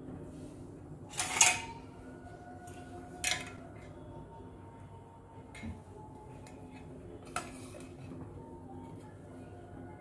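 Stainless-steel pan and kitchen utensils clinking and clattering, with four separate metallic knocks, the loudest about a second in, over a steady low background hum.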